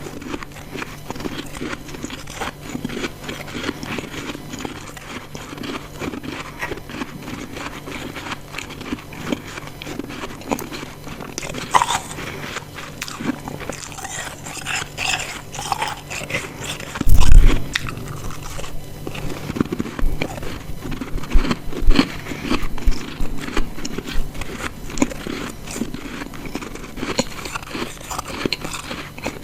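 Ice chunks being bitten and chewed close to the microphone: a run of crisp crunches and crackles. About halfway through, a brief, loud, low thud stands out above the crunching.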